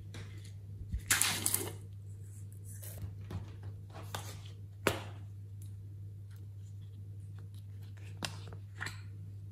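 Plastic containers and craft items being handled on a table: a short noisy burst about a second in, one sharp click near the middle, and a few light taps later, over a steady low hum.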